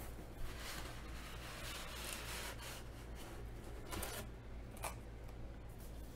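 Unboxing sounds: cardboard packaging, a paper manual and foam sheeting being handled, with soft rustling and rubbing and a few brief clicks.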